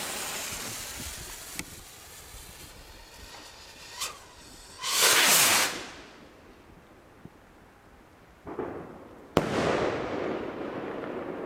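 Funke Saturn ball-head firework rocket launched from a rocket stand. The lit fuse hisses, then the motor catches about five seconds in with a loud whoosh as the rocket takes off. Near the end the head bursts with one sharp bang, followed by a fading hiss as the stars burn out.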